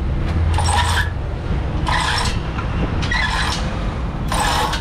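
Steady low rumble of road traffic, with a short harsh rasping noise repeating about every second, four times.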